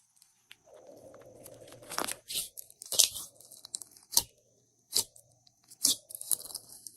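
Glossy slime being kneaded and stretched by hand, with about five sharp clicking pops and a wet crackle between them.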